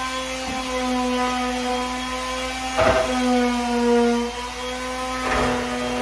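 Electric sander running on wooden cabinetry with 220-grit paper, a steady motor hum whose pitch wavers a little. Two short scuffing bursts come about three seconds and five and a half seconds in.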